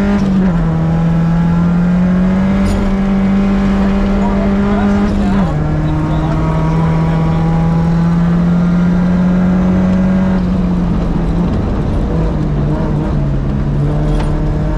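Rally car's engine heard from inside the cockpit, held at high revs under hard acceleration over a steady rush of tyre and road noise. The note drops sharply twice, just after the start and about five seconds in, as the gearbox is shifted up. In the last few seconds the revs fall and waver as the driver comes off the throttle.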